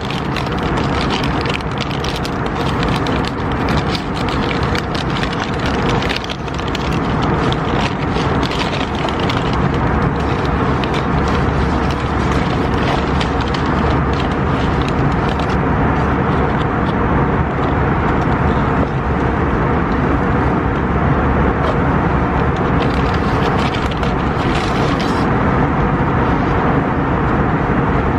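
Steady, loud vehicle noise.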